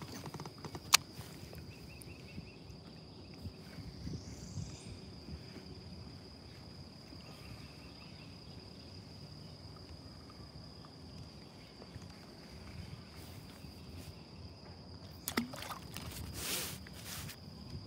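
Water lapping against the hull of an inflatable boat, with a low, steady rumble of wind and water. A thin steady high-pitched tone runs underneath. There is a sharp click about a second in and a few clicks and knocks near the end.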